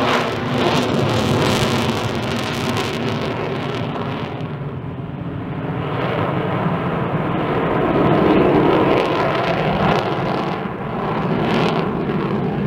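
Avro Vulcan delta-wing jet bomber flying past, its four Rolls-Royce Olympus turbojet engines producing a loud, continuous roar. The roar swells to its loudest about two thirds of the way through, dips, then rises again near the end.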